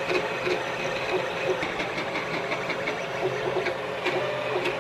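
Creality CR-10 3D printer at work: its stepper motors whir in short, quick moves of shifting pitch, several a second, as the print head traces a layer, over a steady fan hum.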